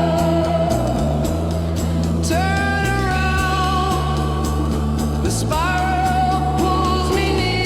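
A 1960s-style psychedelic rock song: a long-held, wordless lead melody that slides up into each new note twice, over a walking bass line and light drums.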